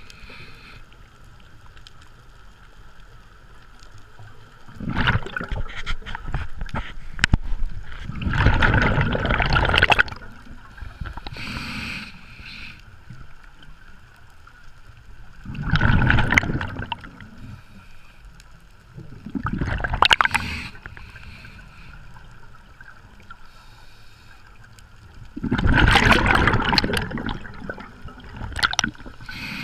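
Scuba diver's exhaled breath bubbling out of the regulator, heard underwater: gurgling bursts of bubbles every few seconds, with quieter stretches between breaths.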